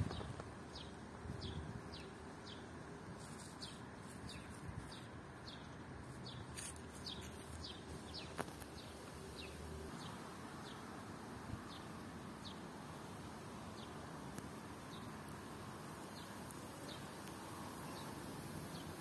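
Small bird chirping: short, high, falling notes repeated about twice a second, thinning out in the second half, over a steady outdoor hiss.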